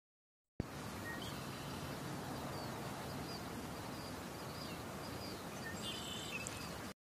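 Outdoor ambience: a steady hiss of background noise with a few faint, high bird chirps scattered through it. It starts suddenly with a click just after the start and cuts off abruptly near the end.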